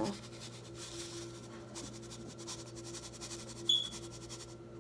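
Dry seasoning sprinkled by hand from a foam cup onto raw chicken breasts, a faint light patter over a steady low hum, with one short high squeak about three and a half seconds in.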